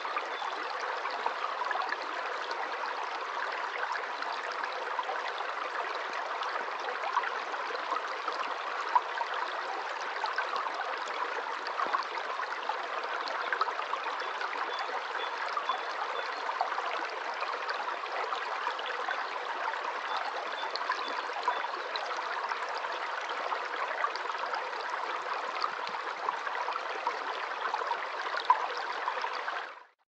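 Shallow stream flowing over rocks: a steady rush of water flecked with tiny splashes, fading out at the very end.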